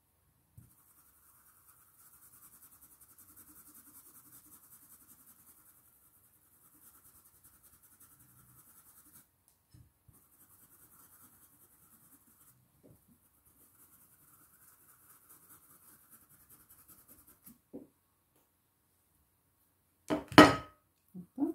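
Small stencil brush scrubbing paint onto fabric through a stencil, a faint scratchy brushing that comes and goes. Near the end, two loud knocks.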